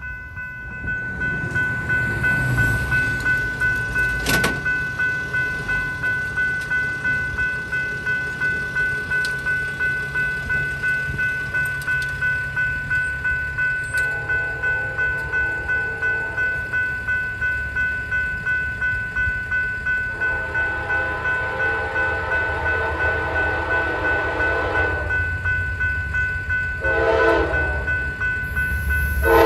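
Grade-crossing warning bell ringing steadily, about two strokes a second, while an approaching Norfolk Southern freight locomotive's horn sounds the grade-crossing signal: a long blast about halfway in, a longer one, a short one, and a final long blast starting at the very end. A single sharp click sounds about four seconds in.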